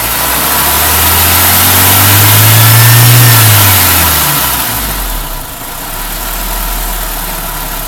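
A warmed-up engine revved once: its pitch climbs for about three seconds, peaks, and falls back by about four and a half seconds in, then settles to a steady idle.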